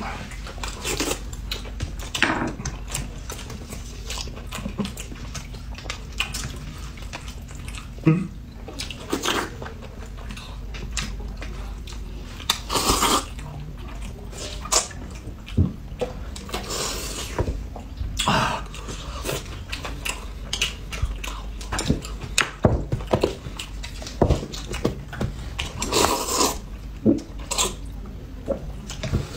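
Close-up eating sounds: hot and sour sweet-potato noodles (suan la fen) slurped from a paper cup, mixed with chewing. They come in irregular bursts and short clicks, a few slurps lasting up to a second.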